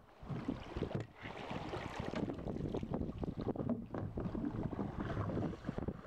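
Wind gusting on the microphone over water lapping along the hull of a wooden toue, a flat-bottomed river boat being poled along, with brief lulls near the start and about a second in.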